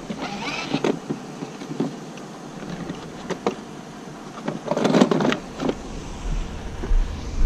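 Hollow plastic knocks and rattles from a child's plastic Minnie Mouse ride-on toy being turned over and handled, with the loudest clatter about five seconds in.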